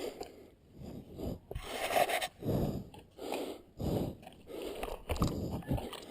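Heavy, rapid breathing in quick rhythmic pulses, about one and a half a second, from a cyclist out of breath on a very steep climb.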